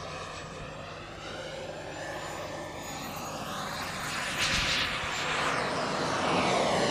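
Gas-turbine engine of a CARF Mephisto model jet whining and rushing as it flies by. The sound fades early on as the jet moves away, then grows louder again toward the end as it comes back round.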